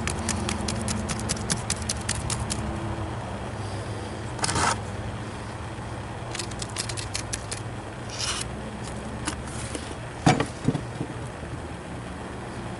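Rapid tapping on wet refractory packed into a furnace shell, vibrating it to bring the moisture and slurry up to the surface, in two quick runs of about eight to ten taps a second. Short scrapes come in between, and a sharp knock comes near the end.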